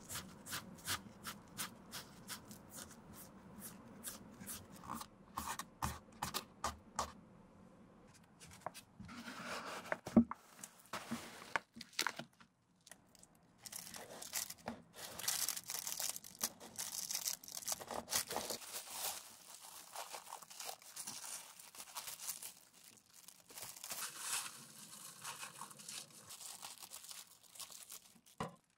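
Quick taps of a foam sponge brush dabbing dye onto leather, then, after a sharp knock about ten seconds in, masking tape being pulled off its roll and pressed along the shoe, with the plastic masking film rustling and crinkling.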